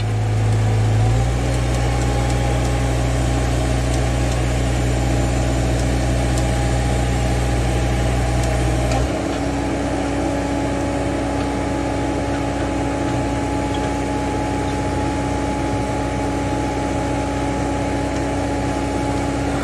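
Direct-push drilling rig (GeoProbe 7700) running steadily, a low engine drone whose tone shifts abruptly about a second in and again about nine seconds in.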